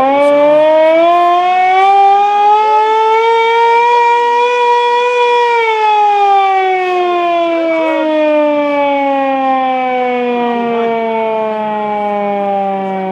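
Loud air-raid siren wail: the pitch climbs, holds high for a moment about five seconds in, then slowly winds down.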